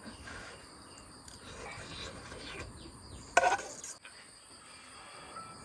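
Steady high chirring of insects, with a brief loud sound about three and a half seconds in.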